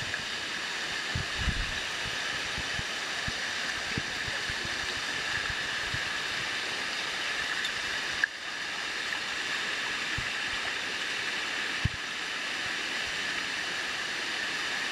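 Water rushing and splashing steadily over the rock ledges of a cascading waterfall, with a few brief low bumps against the microphone.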